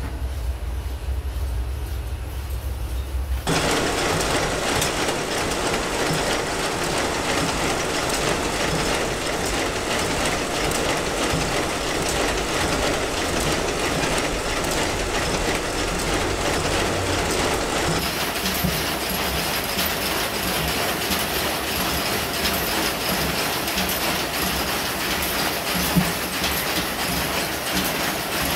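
Machine looms weaving korai grass sleeping mats, running with a dense, steady stream of mechanical clicks and knocks that begins sharply a few seconds in after a low rumble, with one louder knock near the end.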